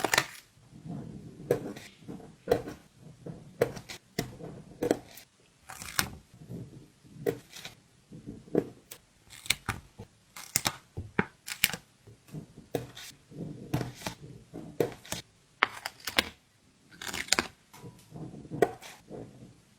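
Stickers being peeled off their backing sheet and pressed down by hand: a long run of short, crackly peeling and tapping sounds, about one or two a second.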